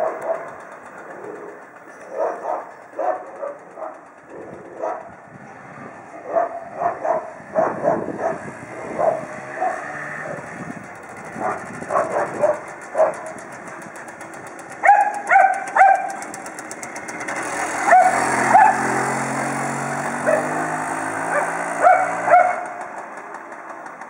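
A dog barks repeatedly in short sharp barks, three in quick succession about two-thirds of the way in. Meanwhile the Dezamet Dantom GXF 50 Lux moped's small two-stroke engine comes closer, rising in pitch and growing louder in the second half, then dropping away near the end.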